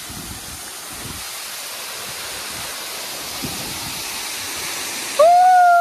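Waterfall rushing in a steady roar of falling water, growing slightly louder. Near the end a loud, steady, pitched tone cuts in suddenly and holds for under a second.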